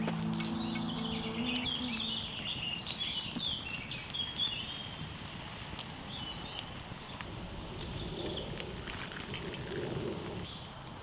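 Small songbirds chirping and singing in woodland, with a strummed guitar tune ending about two seconds in.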